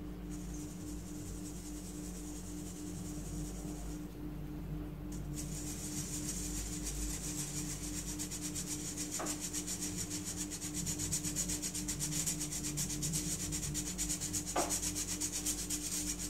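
Metal measuring spoon rubbing flour through a fine-mesh wire strainer: a dry, rasping hiss. It stops briefly about four seconds in, then comes back as quick, regular scratching strokes.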